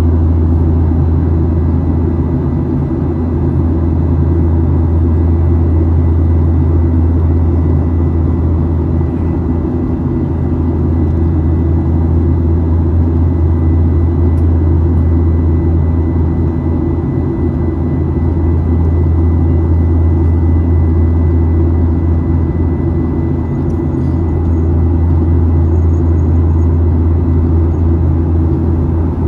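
Cabin noise of a Boeing 737-900ER climbing after takeoff, from a window seat by the wing: a steady, loud low rumble from the CFM56-7B engines and airflow, with a thin steady whine above it.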